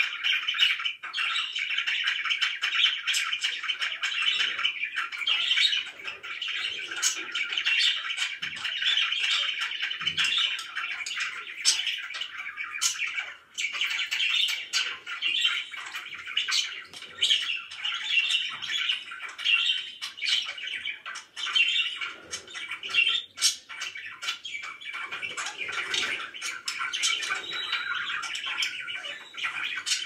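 A group of pet budgerigars chattering and warbling without pause, with many sharp chirps and squawks mixed in.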